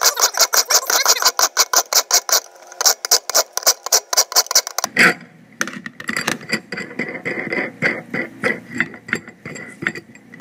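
Thread file drawn quickly back and forth across the threads of a steel all-thread rod, a fast rasping rhythm of several strokes a second. About five seconds in the filing stops and a hex nut is spun along the repaired threads with light, scattered metal clicks and scrapes.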